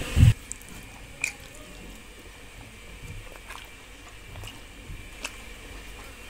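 Close-miked eating sounds: a short, loud low thump at the very start, then faint chewing with soft squishes and scattered small clicks as fingers work spiced rice (fish pulao) on a steel plate.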